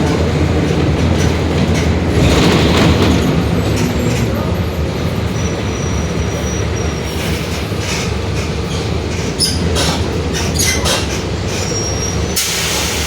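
Mercedes-Benz OF-1721 Bluetec 5 city bus under way, heard from inside: the engine runs steadily while the body gives off rattles and clicks, with the differential droning. A steady hiss sets in near the end.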